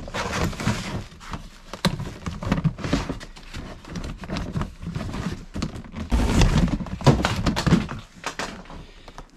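Plastic storage tote being slid out of a shelving unit and handled, with rustling from bubble wrap and a run of plastic knocks and thunks; the heaviest thumps come about six to seven seconds in.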